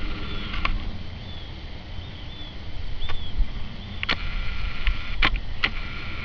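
Outdoor field ambience with a steady low rumble of wind on the microphone, faint short high chirps, and a handful of short sharp clicks or knocks, the clearest about four and five seconds in. No barking.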